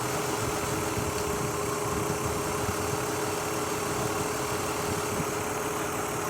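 Mazda Tribute's 3.0-litre V6 idling roughly with a misfire, a steady whine over the engine note. The misfire comes from ignition coils arcing where oil from leaking valve cover gaskets has got into the spark plug wells.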